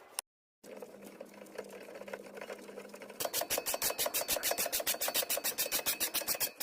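A machine rattling in rapid, even strokes, about nine a second, starting about three seconds in. Before that comes a lower steady hum with scattered clicks, after a brief drop to dead silence near the start.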